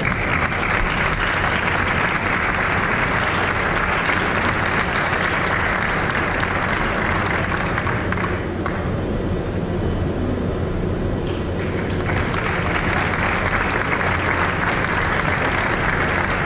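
Audience applauding in a large hall with steady clapping, thinning for a few seconds about halfway through, then picking up again.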